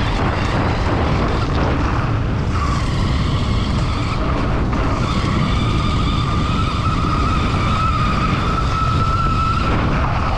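CYC X1 Pro Gen 2 electric mid-drive motor on a mountain bike running at full power: a high whine that comes in after a couple of seconds and climbs slowly in pitch as the bike speeds up to around 50 km/h, then stops near the end. Heavy wind rumble on the microphone and tyres rolling on a gravel track run under it.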